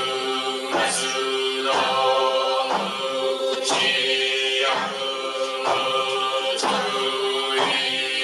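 A group of voices chanting a Zen sutra together on one held pitch. A sharp percussive knock about once a second keeps the beat.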